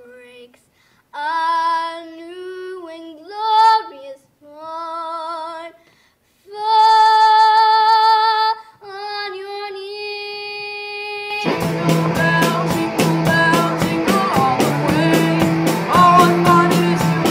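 A girl singing solo and unaccompanied, in slow phrases with vibrato and long held notes. About eleven seconds in, a rock band of drums, electric guitars and bass breaks in loudly with a steady beat.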